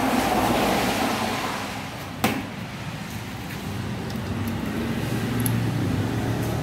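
Steady vehicle-like rumble. About two seconds in there is a single sharp metallic click from parts of a diesel injection pump being worked on by hand.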